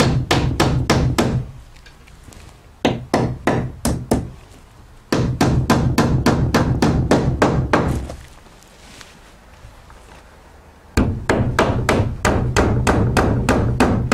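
Hammer driving nails through LP SmartSide engineered-wood siding panels into the shed's wood framing. The blows come in quick runs of about four a second, four runs in all, with short pauses between nails.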